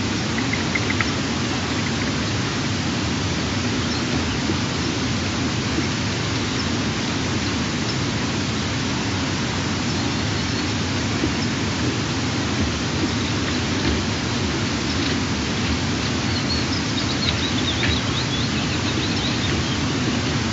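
Steady rushing wind noise on the nest-camera microphone, with a few faint high chirps showing through it, most of them near the end.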